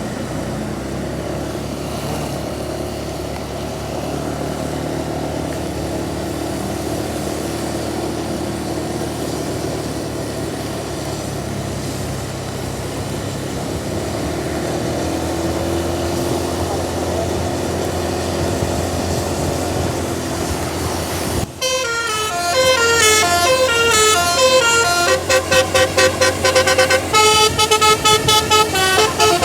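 Vehicle running with steady road noise, then about two-thirds of the way through a bus's telolet multi-tone musical air horn starts playing a loud melody of stepped notes, ending in quick repeated toots.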